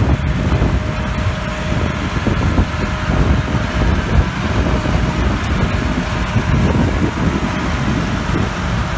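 Grimme Varitron 220 self-propelled potato harvester working in the field: steady diesel engine rumble mixed with the running of its lifting and sieving machinery, with a faint high whine over it.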